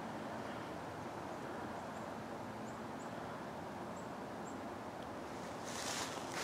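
Quiet woodland ambience: a steady outdoor hiss with faint, short, high chirps every second or so. About five and a half seconds in, footsteps start crunching through dry fallen leaves.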